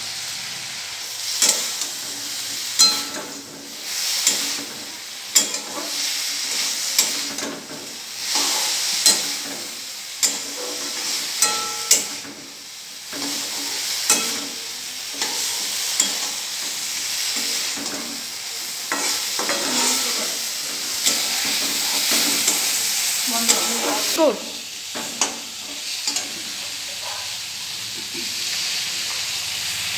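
Broccoli stir-frying in a steel pan, sizzling steadily, while a metal spatula scrapes and knocks against the pan in irregular strokes.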